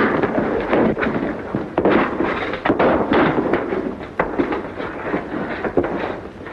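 Gunfight: many sharp gunshots fired irregularly, several a second, over a steady crackling din.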